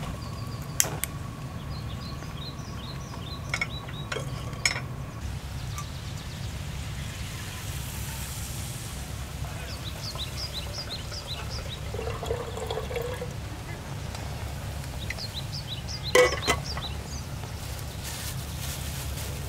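Water poured from a glass pitcher into the lower kettle of a glass Turkish double teapot, around the middle, with sharp glass clinks as the pots are handled, the loudest about sixteen seconds in.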